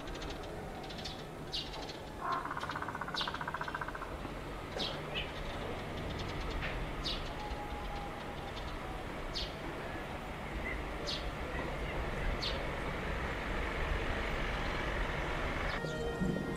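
Outdoor ambience: short, high bird chirps about once a second over a steady low background rumble, with a brief buzzing rattle about two seconds in.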